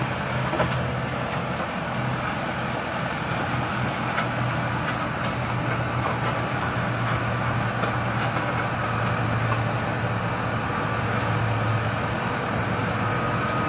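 Tractor engine running at a steady speed, a constant low hum with a few faint clicks scattered through it.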